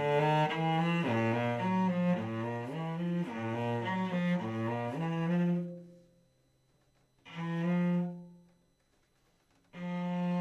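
Solo cello bowed: a quick run of notes that ends on a held note about five seconds in, then a pause, a single short bowed note, another pause, and a long sustained note starting near the end.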